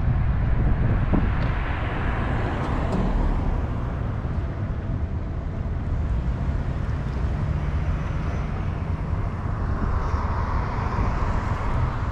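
Road traffic noise with a heavy low rumble, probably with wind on the microphone. A vehicle's whoosh swells and fades about two seconds in, and another builds near the end.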